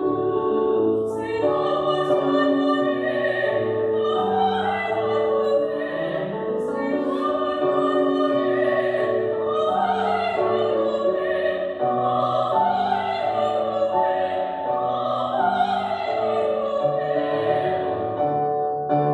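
Operatic classical singing with a wide vibrato, accompanied by an electric keyboard played in a piano voice.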